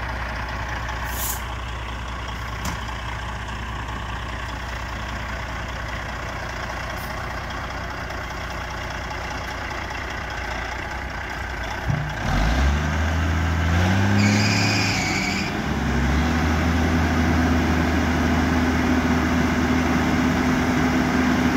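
Diesel dump truck idling, with a brief air hiss about a second in. About halfway through the engine revs up and then holds at a steady higher speed while the hydraulic hoist raises the dump bed, with a short high whine as it starts.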